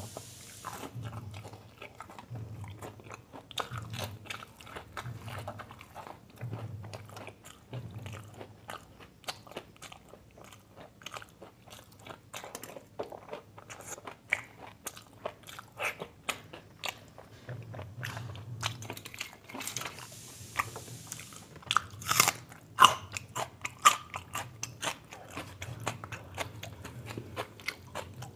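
Close-up eating sounds: one person chewing and biting through a meal of mutton curry with samosa and paratha, with wet mouth clicks and smacks over a slow, steady chewing rhythm. A louder run of crisp bites and clicks comes about three quarters of the way through.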